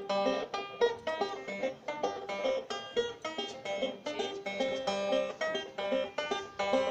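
Solo banjo picked in Kenyan benga style: a quick, even run of plucked notes with a steady, repeating rhythm.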